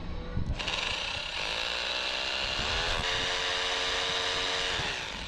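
Electric rotary hammer drill boring into a plastered masonry wall to make the hole for an anchor bolt. It starts about half a second in, runs steadily for about four seconds, and stops just before the end.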